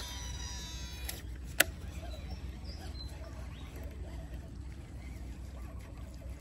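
Shimano Scorpion DC baitcasting reel whining through a cast: the digital-control brake gives a high, falling, many-toned whine for about the first second as the spool spins down, then a sharp click follows about a second and a half in. A low steady rumble runs underneath.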